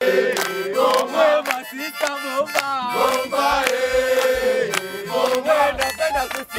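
Harmonica played in cupped hands, a tune of held chords and quick wavering notes, with hand claps along with it.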